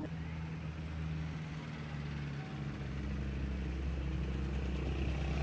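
A steady low motor hum with a couple of held tones, growing a little fuller about halfway through.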